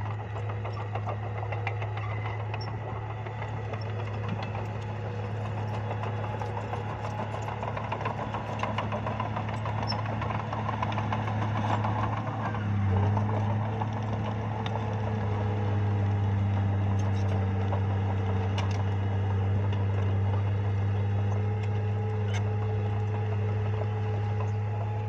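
Bulldozer's diesel engine running steadily with a low hum, with scattered light clicks. About halfway through the engine note shifts briefly and then runs a little louder.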